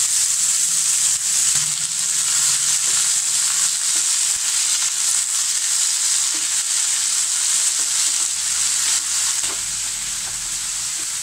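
Freshly added potato and ivy gourd pieces sizzling loudly in hot oil in a frying pan, stirred with a wooden spatula. The sizzle eases a little near the end.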